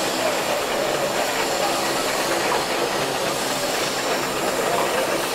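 Steam roller running as it moves, with a steady hiss of steam.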